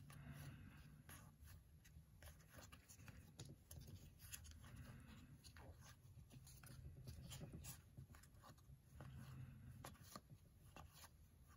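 Faint, irregular soft clicks and rustles of a stack of baseball trading cards being flipped through by hand.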